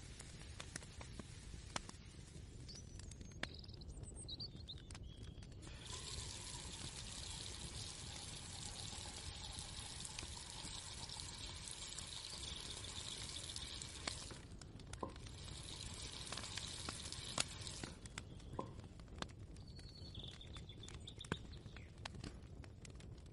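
Kitchen ambience: a low steady rumble with scattered small clicks and knocks of utensils, and a steady hiss, like water pouring or food frying, that starts about six seconds in and stops about eight seconds later. A few short high chirps sound near the start and again near the end.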